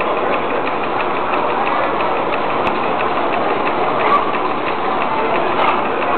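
Miniature model engines running on display, a rapid, even mechanical ticking over a steady clattering din.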